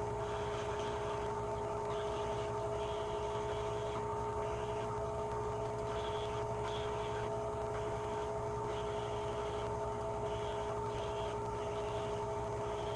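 Steady fan whine from electronics rework bench equipment, holding a few constant tones over a low hum.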